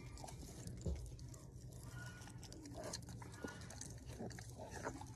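Jaguars eating from a hand: wet chewing, licking and lip-smacking with scattered clicks, over a steady low hum, with one louder knock about a second in.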